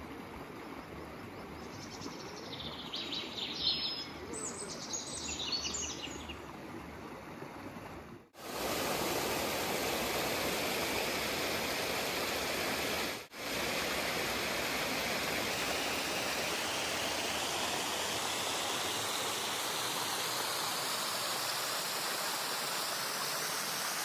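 Mountain stream flowing over rocks, with small birds chirping a few times in the first seconds. About eight seconds in, the sound switches to a louder, steady splashing of a small cascade falling onto rock close by.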